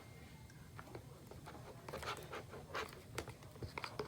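Faint, scattered clicks and short scrapes of a utensil stirring a sticky glue and shaving-cream slime mixture in a container, as the Tide activator starts turning it into slime.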